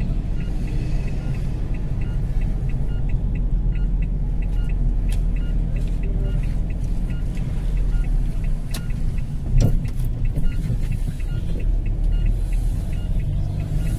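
Cabin noise of a delivery car driving slowly: a steady low engine and road rumble, with two brief knocks about ten seconds in.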